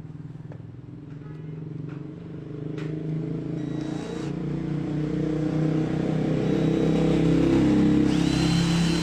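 Ken 12V cordless drill driver running under load, boring with a large size-35 bit: a steady motor-and-gearbox hum that grows louder as it works, with a high whine joining near the end.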